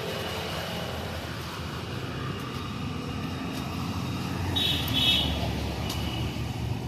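City road traffic running past in a steady low rumble, with two short high-pitched beeps about two-thirds of the way through.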